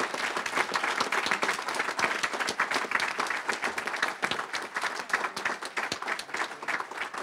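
Audience applauding, a crowd's steady clapping that begins to die down near the end.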